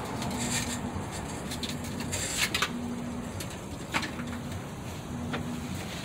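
A dove cooing in a steady, repeated series of low notes, with a few light clicks from hands working on the freezer parts.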